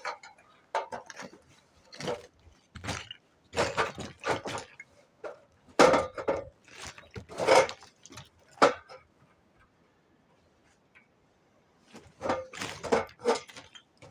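Irregular knocks and clattering of masonry rubble, about ten over the first nine seconds, then a pause and a quick cluster of clatters near the end.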